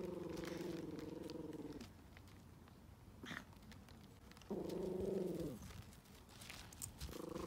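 Yorkshire terrier growling in low, drawn-out rumbles, three times: one of about two seconds, a shorter one around the middle, and another that starts near the end.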